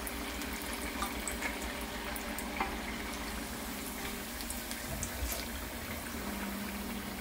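Hot oil sizzling steadily in a wok as pressed taro root (arbi) patties deep-fry, with small scattered crackles.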